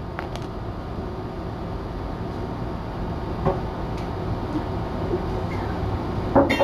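Steady low rumbling room noise, with a few faint light taps and a short, sharper sound near the end.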